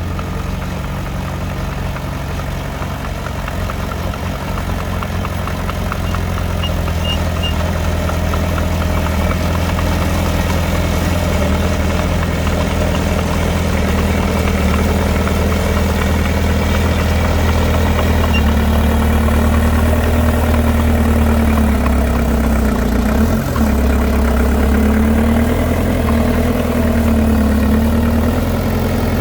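Heavy diesel engine of earthmoving machinery running steadily, getting a little louder over the first several seconds. In the second half a wavering whine rises and falls over the engine.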